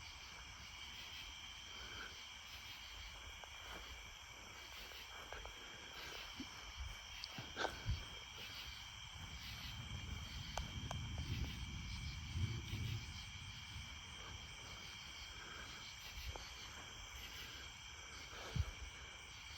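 Crickets and other night insects chirping steadily. Low thunder from a supercell rumbles in, swells and fades over about four seconds midway, and a few sharp cracks sound, two close together about eight seconds in and one near the end.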